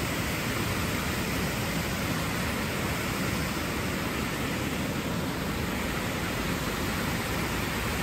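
Water rushing steadily down a man-made waterfall of stepped rock ledges: an even, unbroken rush with no change in level.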